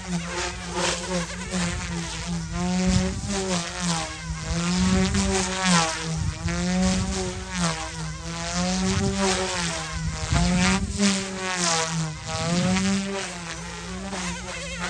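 OMP M2 mini RC helicopter in flight: a buzzing whine from its motors and spinning rotors that rises and falls in pitch again and again as the throttle changes.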